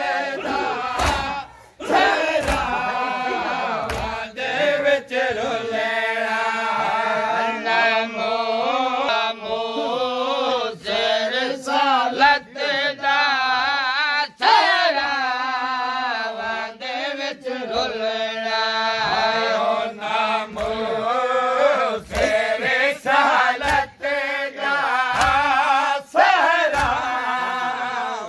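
A group of men chanting a noha (Shia lament) together over a steady held tone, with sharp slaps of hand-on-chest matam striking again and again.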